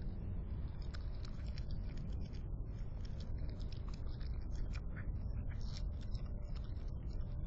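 Raccoon chewing leftover chicken, heard as many quick, irregular small clicks and smacks over a steady low background noise.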